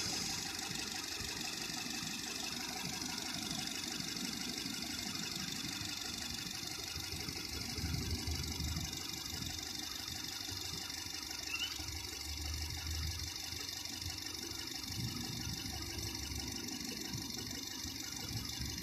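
2012 Nissan Tiida's four-cylinder engine idling with a misfire that makes the engine shake, its low rumble uneven.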